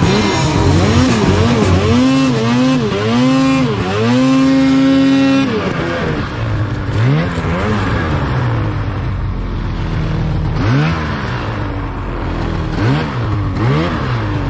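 Arctic Cat Alpha snowmobile's two-stroke engine revving hard, the throttle worked up and down repeatedly and held high for about a second and a half around four to five seconds in. It then drops lower, with a string of short rising revs for the rest of the time.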